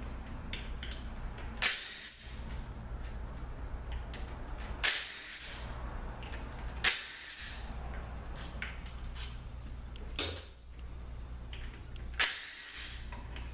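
Valve body bolts coming out of a ZF5HP24 automatic transmission with a T27 Torx tool: sharp metal clicks and clinks every two to three seconds, over a steady low hum.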